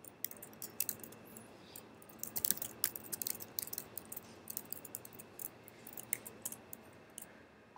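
Typing on a computer keyboard: a quick, irregular run of key clicks, busiest a couple of seconds in and thinning out near the end.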